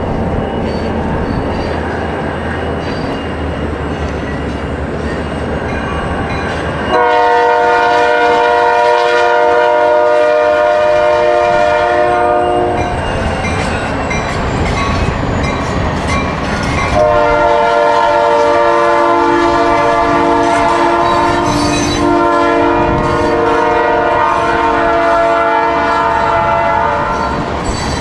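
A freight locomotive's multi-chime air horn sounds one long blast of about six seconds, then after a pause a second, longer sounding, over the steady rumble of the train.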